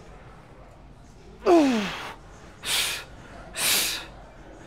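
A man's loud strained grunt falling in pitch, then two hard, noisy breaths about a second apart: the effort and heavy breathing of a man working through a heavy set.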